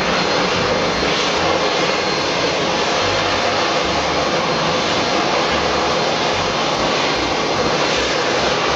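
Fighter-jet engine sound: a loud, steady rush of jet noise with a faint high whine over it, unchanging throughout.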